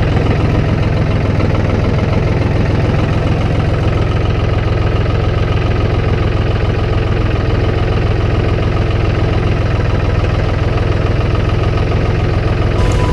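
Engine of a snowplowing vehicle running at a steady speed, a constant loud hum.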